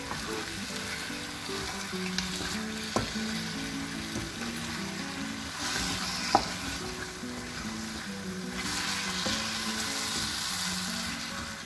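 Chicken pieces sizzling in a spiced tomato masala in a frying pan while being stirred with a wooden spatula; the sizzle swells as the pieces are turned, and the spatula knocks sharply against the pan twice. Soft background music plays underneath.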